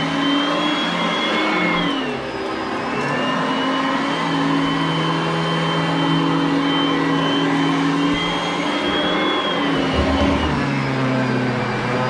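Oreck upright vacuum cleaner running, a steady motor hum with a high whine whose pitch dips about two seconds in and shifts up and down a few more times.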